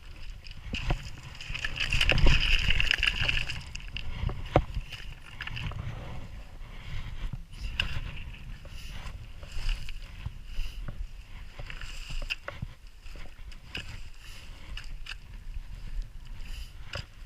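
Strong wind buffeting the microphone with a low rumble, over irregular footsteps crunching on a stony mountain path. It gusts loudest about two seconds in.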